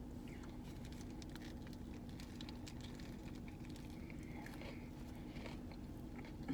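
Faint scattered clicks and crackles of someone chewing a crispy fried chicken sandwich, over a steady low hum.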